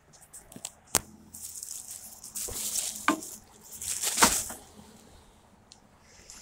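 Footsteps scuffing on the felt roof of a pigeon loft as someone climbs down. There is a sharp click about a second in and two longer stretches of rustling, scraping noise.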